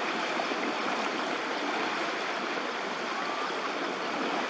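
Floodwater rushing and splashing in a steady, even wash.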